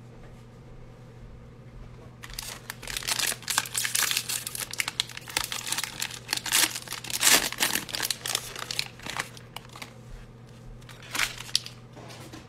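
Plastic wrapper of a 2020 Panini Playoff football card fat pack being torn open and crinkled by hands in nitrile gloves. A dense crackling starts about two seconds in, peaks a little past the middle and eases off near ten seconds, with one more short crinkle near the end.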